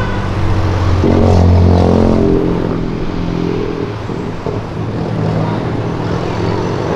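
Car engines on a street as cars drive past. About a second in, one engine revs up, its pitch rising and then falling, and this is the loudest part; after about three and a half seconds the engines run on more evenly.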